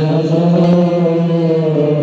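Devotional chanting voice, amplified over a PA through horn loudspeakers, holding long, steady-pitched lines.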